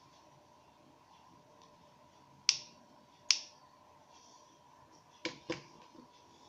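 Small plastic parts of a Nikon SB-600 speedlight's flash-head assembly clicking as they are handled and fitted during a flash-tube replacement: two sharp clicks partway through, then two softer clicks near the end, over a faint steady high whine.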